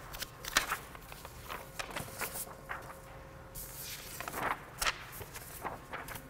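Sheets of paper being shuffled and handled on a table: irregular rustles and crinkles, with sharper ones about half a second in and again near five seconds.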